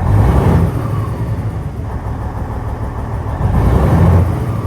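Cummins N14 diesel truck engine running just after a quick start, with two short rises in engine sound, one at the start and one near the end. It now starts promptly because the faulty, stuck-open fuel check valve has been replaced.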